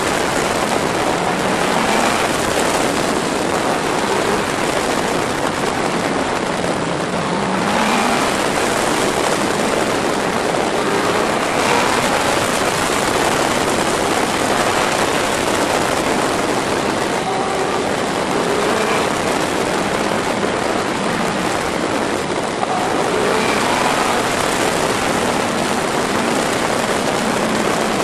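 Wind rushing loudly over the microphone of a fast-moving Yamaha inline-four sport motorcycle, with the engine's note underneath rising and falling a few times as the rider accelerates and eases off through the bends.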